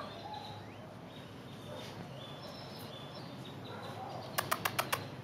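Kennel ambience with a few faint, short animal calls in the background. Near the end comes a quick run of five sharp clicks or taps, about eight a second.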